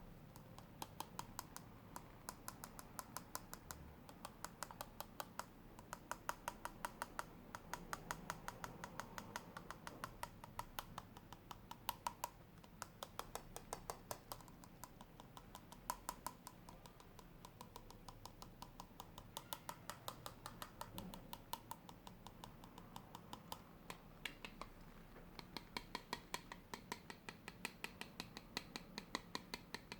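Rapid light tapping: sharp clicks at several a second, in runs with brief pauses.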